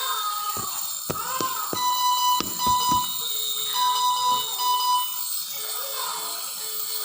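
Electronic alarm beeping in two pairs of steady high beeps, each beep about half a second long, the pairs about two seconds apart, over a steady hum, with a few sharp knocks during the first pair.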